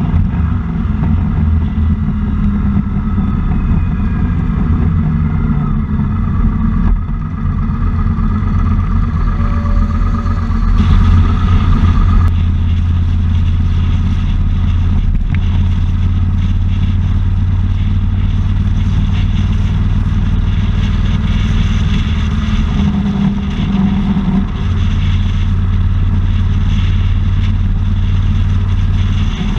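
Motorcycle engine running steadily while riding in traffic, with a continuous rush of wind and road noise; it gets briefly louder about eleven seconds in.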